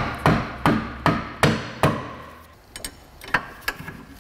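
Six sharp metal knocks about 0.4 s apart, each ringing briefly, then a few fainter clicks: a tool tapping the rear strut's lower mounting bolt home through its bushing.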